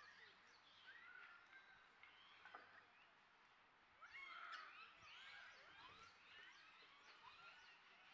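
Faint, scattered animal calls: many short rising and falling chirps overlapping, busiest about halfway through.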